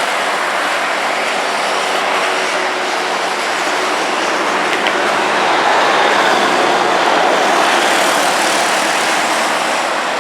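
Heavy city street traffic: a steady wash of engine and tyre noise from vehicles passing at low speed, swelling a little past the middle.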